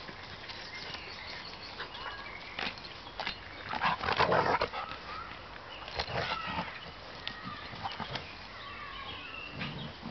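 Two dogs play-fighting, with dog vocal noises and scuffling. The loudest burst comes about four seconds in, and a shorter one comes around six seconds.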